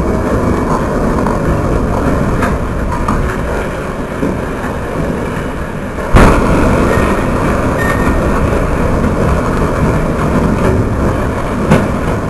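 A toppling concrete building crashing to the ground: a loud, steady rumble, then one sudden heavy crash about six seconds in, followed by the continuing rumble of collapsing rubble.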